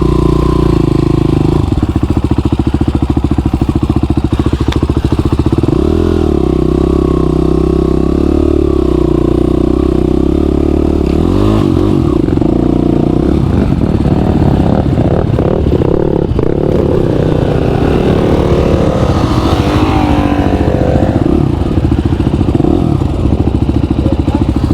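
Motorcycle engine running loud and steady, its revs rising and falling several times as it is ridden.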